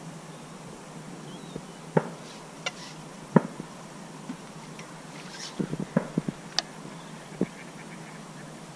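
Faint steady hiss with a handful of sharp clicks and knocks, several close together about six seconds in: handling noise from fishing tackle while a fish is played in and netted.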